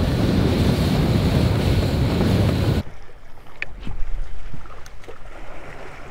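Boat under way across open water: a loud, steady rush of wind on the microphone with water and hull noise. Near the halfway point it cuts off abruptly to a much quieter wash of calm water with a few light clicks.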